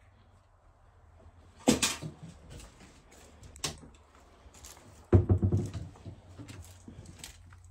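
Hard knocks and clicks from things being handled: a sharp knock about two seconds in, a lighter click, then a heavier knock just past five seconds that runs into a brief rattling clatter.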